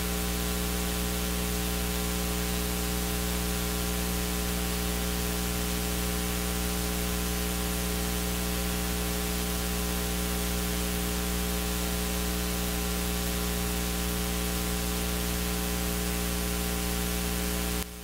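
Steady electrical mains hum and hiss, a buzz with many evenly spaced overtones, that cuts off suddenly near the end.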